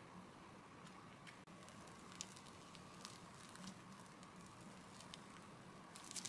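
Faint soft wet clicks and squishes of whipped cream being squeezed from a piping bag onto sponge cake inside a hollowed melon, with a short burst of sharper crackly clicks near the end.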